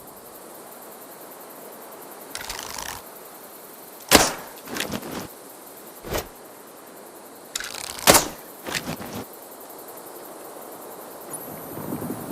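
Bow and arrow sound effect: two shots about four seconds apart. Each is a brief rustle, then a sharp crack of the release and hit, followed by a couple of smaller knocks.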